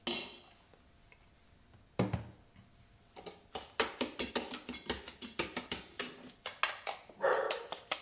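A sharp knock, another about two seconds in, then from about three seconds on a quick run of clinks and scrapes, about four or five a second, as a hand-mixer beater stirs creamed margarine and sugar against a stainless steel mixing bowl.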